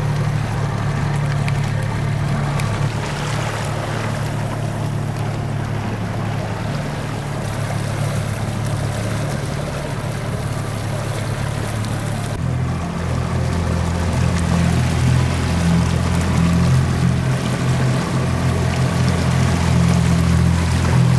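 A 30 hp outboard motor running steadily with the boat under way, with water rushing along the hull. About twelve seconds in, the engine's pitch shifts and the sound grows a little louder.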